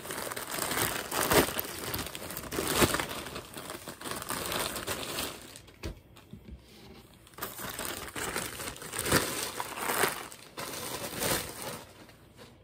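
Plastic shipping mailer bag crinkling and rustling in hand, in irregular bursts with a short lull about halfway through.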